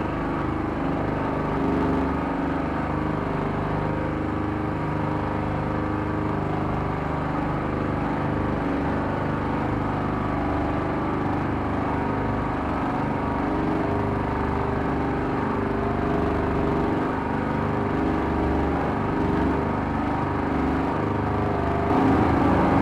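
Engine of a homemade frame all-terrain vehicle running steadily as it drives through swampy ground, heard from inside its fabric-covered cab. It gets a little louder just before the end.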